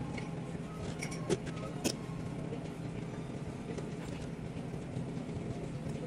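Steady restaurant background noise with a low hum, and two sharp clicks, one a little over a second in and another just before two seconds.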